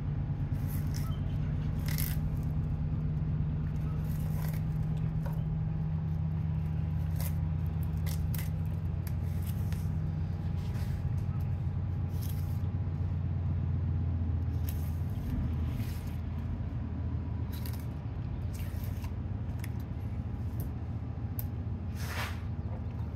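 A fillet knife scraping and cutting through a salmon along the backbone, in short irregular strokes, over a steady low motor-like hum that drops in pitch partway through.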